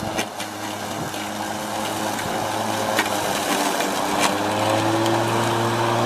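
Corded electric lawn mower running steadily while cutting grass: an even motor hum and whine that gets a little louder about four seconds in, with a couple of faint ticks.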